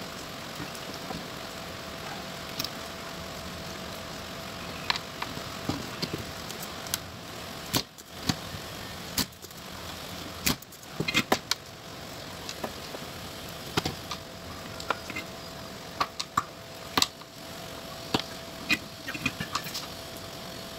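Small clicks and taps of a soldering iron and tools working a circuit board, as transistors are desoldered from it. The clicks come in clusters over a steady background hum with a faint high tone.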